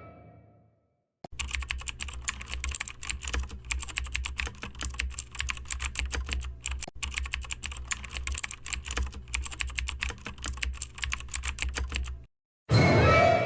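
Rapid, continuous typing on a computer keyboard for about eleven seconds. A loud ringing hit fades out at the start, and another strikes about a second before the end.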